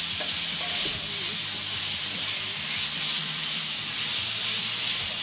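Chicken pieces frying in hot oil in a cast-iron skillet, with a steady sizzle.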